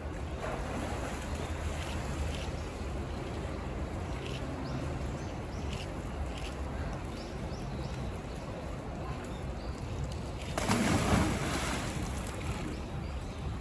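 Polar bear splashing into a pool, a loud rush of water about ten and a half seconds in that lasts a second or so, over steady background noise with a few faint high chirps.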